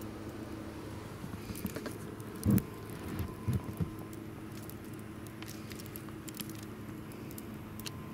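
Footsteps pressing and crunching through deep snow, with one heavier thump about two and a half seconds in and a few softer ones a second later, over a steady low hum.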